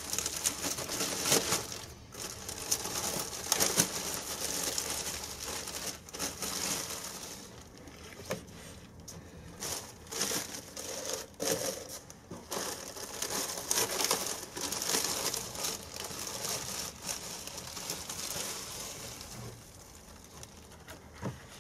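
Thin plastic bags crinkling and rustling in the hands as bare-root strawberry plants are unwrapped, in irregular crackly bursts that die down near the end.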